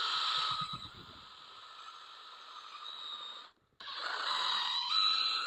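Whine of a handheld electric power tool's motor spinning a polishing pad to buff rubbing compound into a hazed plastic headlight lens. It cuts out suddenly about three and a half seconds in and starts again a moment later.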